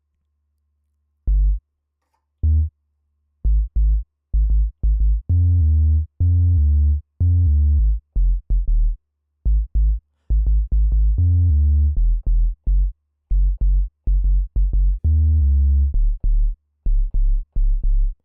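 Synthesized 808-style bass notes from a Reaktor patch (oscillator through filter, VCA and drive distortion) played one after another at different pitches, some short, some held about a second. A rattly, distorted low bass.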